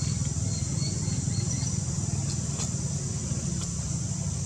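Outdoor ambience: a steady high-pitched insect drone over a constant low rumble, with a few faint ticks.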